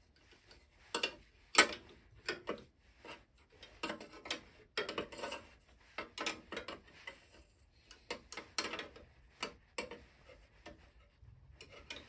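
Irregular metallic clicks, taps and scrapes of a hand wrench working a nut inside the lathe's back housing as the motor pulley is tightened down. The sharpest click comes about a second and a half in.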